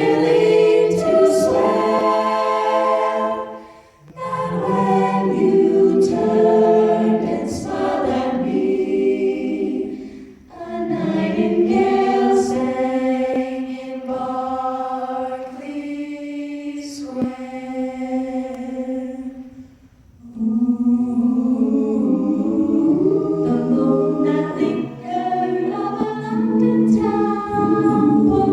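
Choir singing in sustained, held chords, with three short breaks between phrases.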